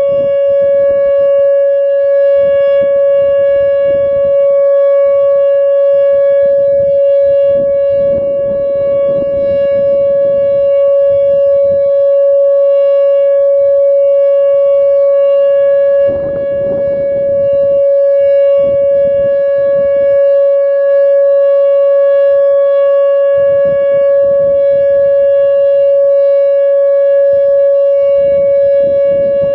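Whelen WPS-2908 electronic outdoor warning siren sounding a steady alert tone: one unchanging pitch with a buzzy overtone stack, its loudness dipping slightly now and then. Irregular low rumbles come and go beneath it.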